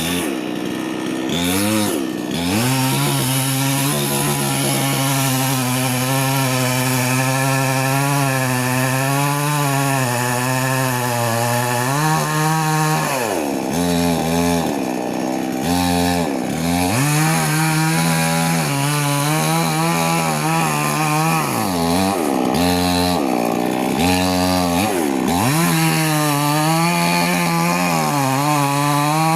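Chainsaw cutting a tree, its engine running at high revs. The pitch repeatedly sags and climbs back up throughout.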